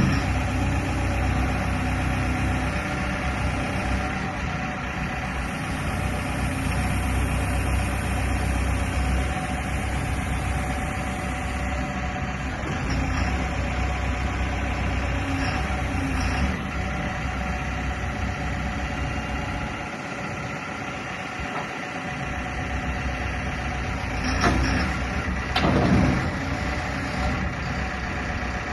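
Caterpillar 424 backhoe loader's diesel engine idling steadily, its note rising and falling briefly near the end.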